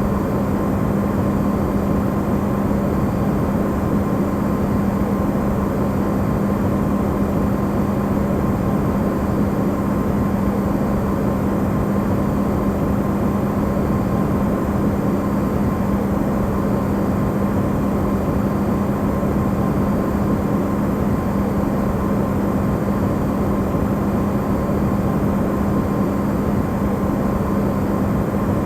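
Electrolux refrigerator running, recorded amplified: a steady low hum over an even rushing noise, unchanging throughout.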